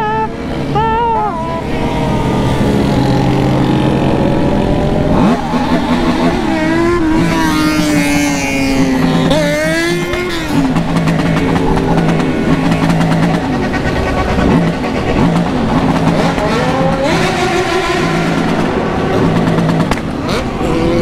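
Many motorcycle engines running together in a large group ride, with other bikes revving up and down around the rider over steady wind and road noise; the loudest revs come in the middle.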